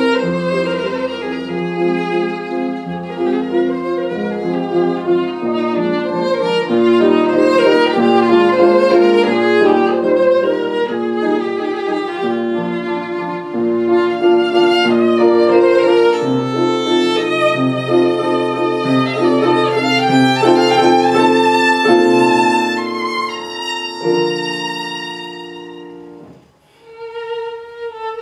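Violin played with a bow, a melody of held and moving notes with lower sustained notes sounding beneath it. The music fades to a brief break about 26 seconds in, then picks up again.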